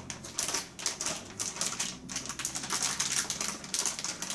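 Plastic bag of shredded mozzarella crinkling and rustling as it is shaken and squeezed out over a dish, making rapid, irregular crackles.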